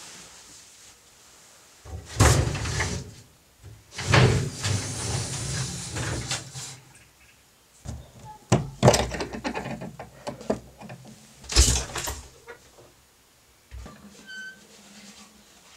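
A traditional Korean wooden lattice window covered with hanji paper is unlatched and pushed open: several bursts of rustling, rattling and wooden knocking as its iron ring latch is worked. A single dull thunk comes near the end.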